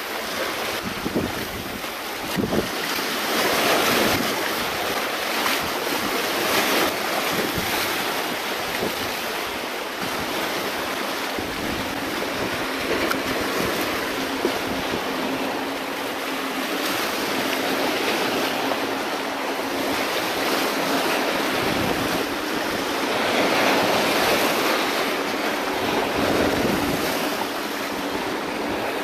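Small waves washing and breaking against jetty rocks, with wind buffeting the microphone. The surf swells louder about four seconds in and again some twenty seconds later, and a faint steady low hum runs through the middle stretch.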